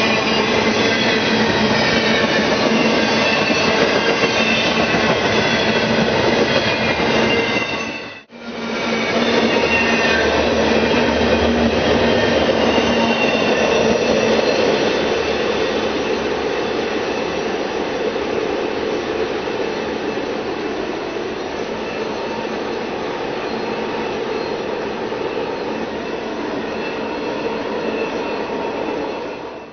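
Double-stack container freight train passing close by: a steady rush of wheels on rail with thin, high squealing tones over it. The sound cuts out for a split second about eight seconds in, then carries on, easing off a little in the second half.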